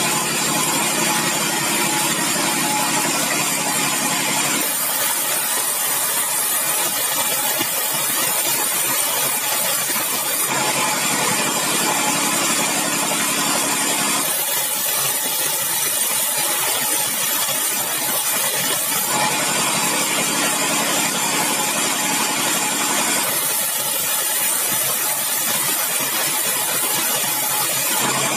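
Large sawmill band saw running while bengkirai hardwood planks are fed through the blade. The steady loud sound changes in tone every four to six seconds as each cut begins and ends.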